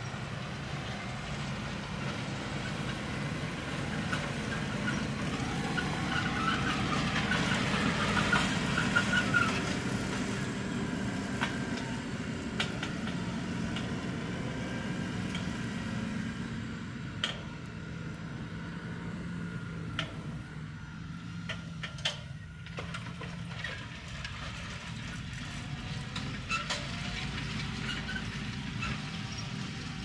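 Fendt 828 Vario tractor's six-cylinder diesel running steadily under load while pulling a Horsch Terrano 5 FX cultivator through the soil. It grows louder to a peak about eight or nine seconds in, then eases off somewhat in the second half. Scattered sharp clicks come in from about seventeen seconds on.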